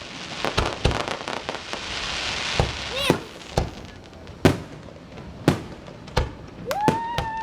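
Fireworks going off: a string of sharp, irregular bangs, with a crackling hiss in the first half. Two short pitched tones come through, a falling one about three seconds in and one that rises and then holds near the end.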